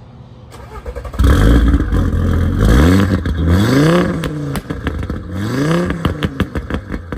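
Tuned Audi RS3 8P's 2.5-litre turbocharged inline five-cylinder accelerating hard. The sound builds for about a second, then the pitch climbs, drops at a gearshift about four seconds in, and climbs again.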